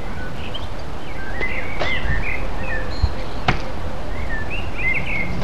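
Bird chirps scattered over a steady low background of outdoor ambience, with two sharp clicks about three seconds in.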